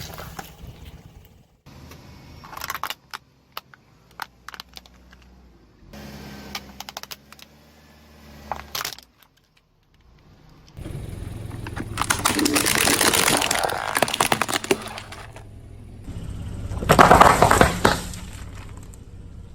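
Brittle objects cracking and crunching under a car's tyre: a few short bursts of snapping and crackling, then two long, loud stretches of dense crunching, the second the loudest, about seventeen seconds in.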